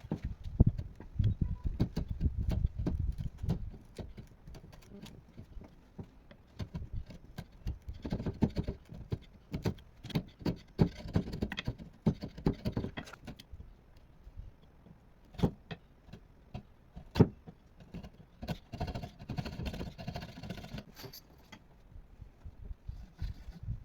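Hand woodworking sounds: scattered knocks and clicks of tools and wood being handled, with two stretches of scraping or rubbing.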